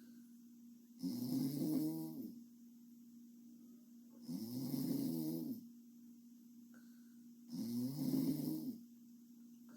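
A sleeping girl snoring: three snores, each a little over a second long, about three seconds apart.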